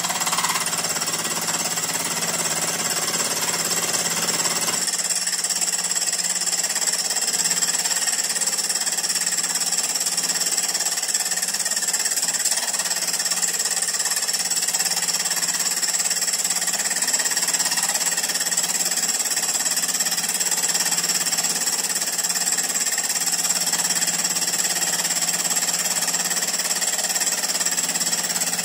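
Bench milling machine running with its boring head taking the final cut across the cylinder block's saddle, a steady machining noise with a slight change about five seconds in.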